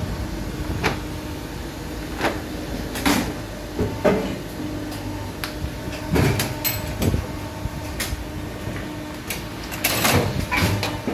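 Plastic injection moulding machine running with a steady hum and intermittent clanks, and near the end its sliding safety gate is pulled along by hand.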